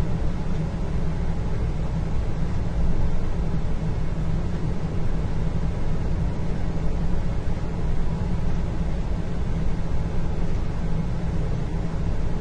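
Indoor ambience: a steady low rumble and hum with an even hiss above it, and no distinct events.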